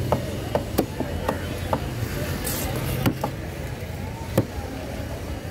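Large knife chopping a sweetlip emperor fish through scaled skin and bone on a wooden chopping board: about ten sharp chops at uneven intervals, the loudest about four and a half seconds in, over a steady low hum.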